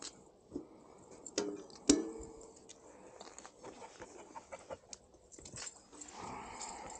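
Light clicks and knocks of a mountain e-bike's rear wheel being worked into the frame, its disc brake rotor being eased into the caliper. The loudest knock comes about two seconds in, with a brief ring.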